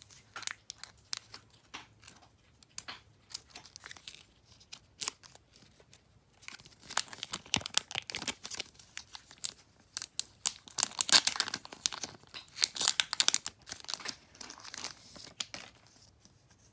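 Foil trading-card booster pack wrapper being torn open by hand and crinkled, in uneven bursts of crackling that are densest and loudest past the middle.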